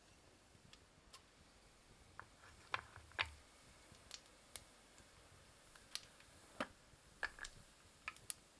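Cumin seeds frying in hot oil in an earthen pot, crackling and popping in faint, irregular clicks. The two loudest pops come about three seconds in.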